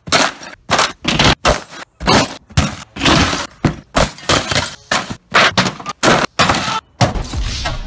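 A rapid run of short, loud crashes and smacks, about three a second, each cut off sharply: a man's body slamming onto and breaking folding tables and folding chairs. In the last second a steadier rumbling noise takes over.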